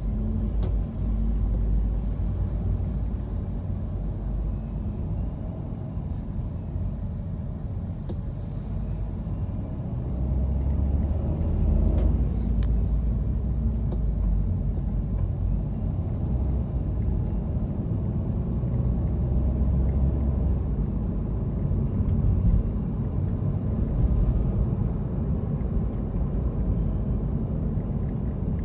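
Car cabin noise while driving in city traffic: a steady low rumble of engine and tyres heard from inside the car, with a few faint clicks.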